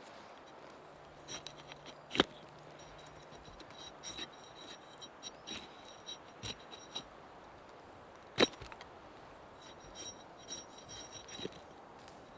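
Split spruce roots being twisted by hand into two-ply cordage: scattered small crackles and clicks, with two sharp snaps, about two and eight seconds in.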